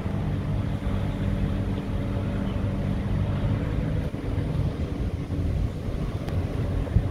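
Car engine running steadily at low speed, with road and wind noise heard from inside the car. A short knock near the end.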